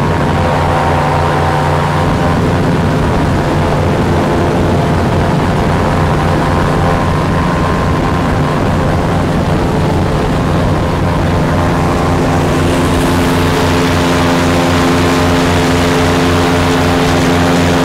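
Airboat's engine and caged air propeller running loud and steady at cruising speed. A rushing hiss grows stronger about two-thirds of the way through.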